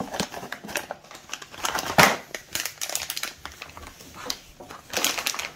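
Clear plastic bag crinkling as a boxed part is lifted out of its cardboard box and handled: a run of irregular crackles, loudest about two seconds in and again near the end.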